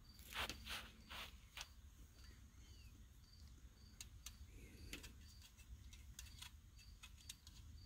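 Near silence with a few faint clicks and taps in the first second and a half, about half a second apart, as steering-wheel hub parts are handled and lined up. A faint high chirp repeats steadily about twice a second.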